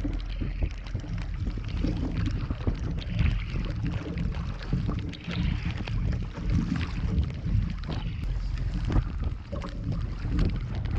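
Strong wind buffeting the microphone in a heavy downpour, with rain and water splashing on a kayak and scattered small knocks and clicks.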